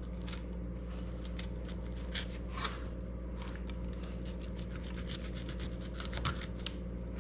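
Fillet knife cutting down a speckled trout's backbone: a run of short, irregular scratchy scrapes as the blade rides along the bones, over a steady low hum.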